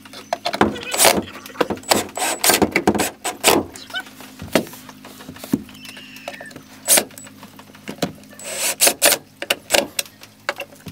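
DeWalt cordless drill/driver running in short bursts, driving screws into a plywood panel, with knocks and clatter from the wood and drill being handled.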